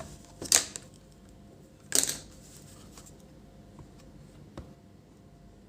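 Two short, sharp scraping clicks about a second and a half apart, then a faint tick, from small tools being handled on a workbench, over a faint steady hum.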